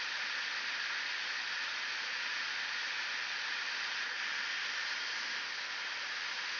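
Hot air rework station blowing a steady hiss onto a circuit board, heating a surface-mount resistor to desolder it.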